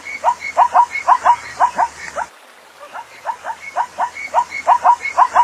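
Zebra calling: a rapid series of short, rising yelping barks, about four to five a second. It comes in two bouts with a brief pause just past two seconds in.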